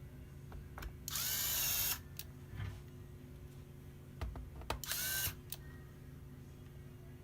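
Small electric screwdriver running in two short bursts, the first about a second long and the second about half a second, with light clicks between them.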